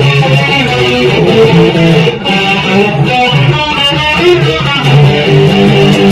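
Electric guitar being played, a continuous run of picked notes and chords.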